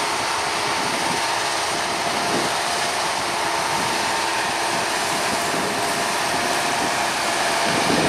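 Fendt Ideal 9T combine harvester running as it cuts barley: a steady mechanical noise with a few faint, steady whining tones in it.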